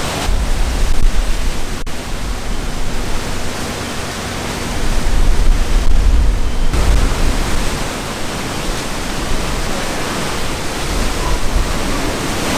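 Hurricane-force wind and heavy rain as a loud, steady rushing noise, with the wind buffeting the microphone in deep low rumbles. The gusting swells about halfway through and drops off abruptly near two-thirds of the way.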